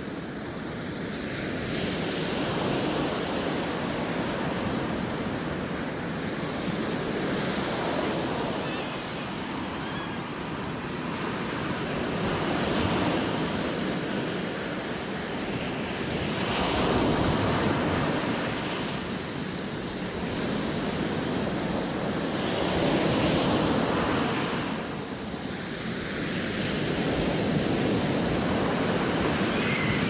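Ocean surf breaking and washing up a sandy beach: a continuous rush that swells and ebbs every few seconds as each wave breaks.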